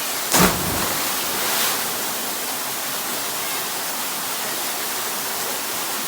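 Steady rushing of a waterfall, with a sudden loud thump about half a second in, followed by a short swell of hiss a second later.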